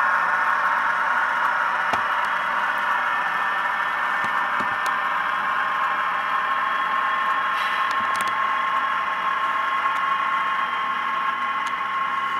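Model diesel locomotive's sound decoder playing a steady diesel engine sound through its small onboard speaker, thin and tinny with a steady whine.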